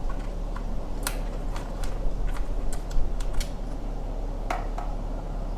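Small plastic and metal clicks and taps, about eight at irregular intervals and loudest around the middle, from wiring connectors being handled and pushed together on a motorcycle's turn-signal wiring. A steady low hum underneath.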